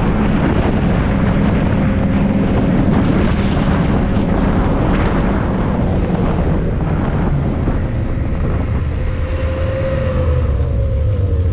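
Snowmobile engine running at speed, with wind rushing over the microphone. The engine note drops near the end as the machine eases off.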